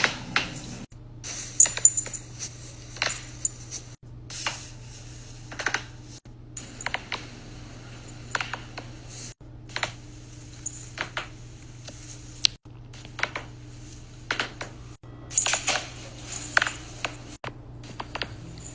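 Sharp cracks and pops from neck joints being adjusted, in quick clusters every second or two over a steady low hum.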